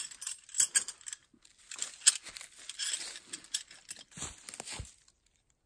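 Aluminium tent stakes being handled, clicking and clinking against each other amid rustling, for about five seconds.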